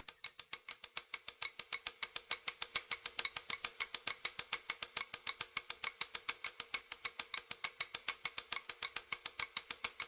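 Fast, evenly spaced percussive clicks, about seven a second, over a faint steady hum, in a stretch of the performance's music.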